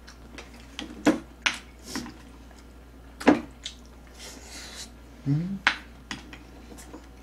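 A spoon clinking against a rice bowl and the stew pan as food is scooped, a few sharp clinks with the loudest about three seconds in. Eating noises and a brief rising hum of the voice come between them.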